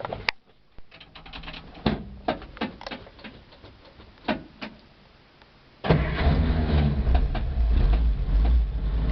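A few light clicks and knocks, then about six seconds in the 1955 Willys pickup's engine starts at once, cold after sitting a week, and runs steadily with a strong low-pitched note.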